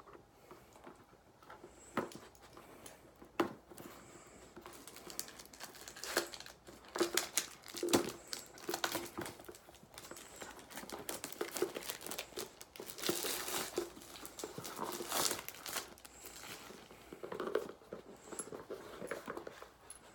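Packaging crinkled and torn open by hand: an irregular run of crackles and rustles with a few sharp clicks, busiest in the middle.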